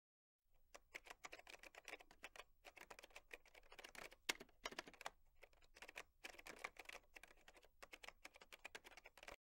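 Faint, rapid, irregular clicking, several clicks a second, in the manner of keyboard typing. It starts about a second in and stops abruptly at the end.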